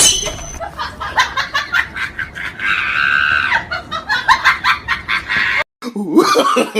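Comic ringtone of chicken-like clucking: a fast run of short clucks with one long held squawk in the middle. It cuts off abruptly near the end, and a wavering voice starts.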